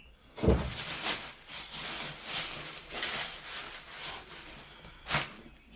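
Rustling and handling noise of clothing, likely denim jeans, being moved about and shown, with a knock about half a second in and another near the end.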